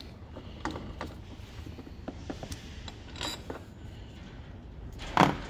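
Ratchet with an extension undoing the 13mm bolt of a car battery's hold-down clamp: scattered clicks of the ratchet and bolt, with a louder knock near the end.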